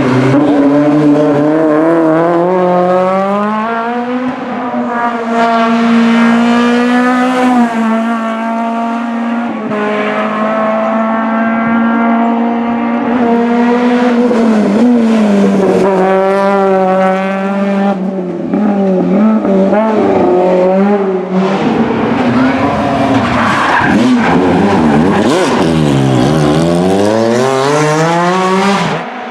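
Rally car engines driven flat out, revving hard and climbing through the gears, holding high revs, then lifting off and picking up again, with tyre squeal.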